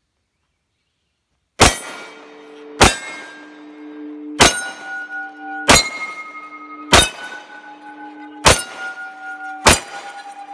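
A 9mm pistol firing seven slow, evenly spaced shots, starting about a second and a half in, each shot followed by the ringing of an AR500 steel target being hit, the ring lasting until the next shot.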